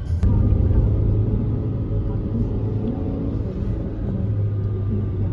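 Steady low rumble of a car's engine and tyres, heard from inside the cabin of a moving car. It starts with a sharp click just after the beginning.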